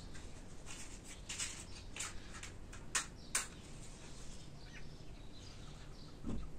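Matches struck on a matchbox to light a small gas stove burner: a few scratchy strikes, the two loudest about three seconds in, then a soft low thump near the end.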